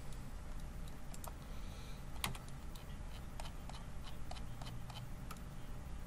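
Irregular light clicking of a computer keyboard and mouse, about two or three taps a second, with one sharper click a little over two seconds in, over a faint low hum.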